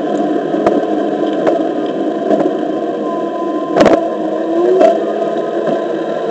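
Onewheel XR electric board rolling over a concrete sidewalk: a steady rumble from the tyre, with a faint motor whine that shifts in pitch as the speed changes. Sharp clicks come about once a second as it crosses the sidewalk joints, the loudest one a little before the middle.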